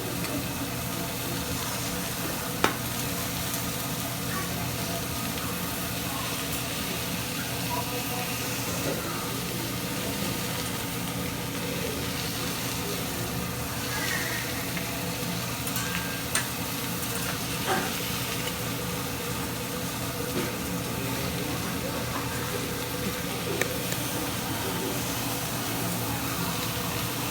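Food sizzling steadily on a hibachi griddle, with a few sharp clicks scattered through it, the loudest a little under three seconds in.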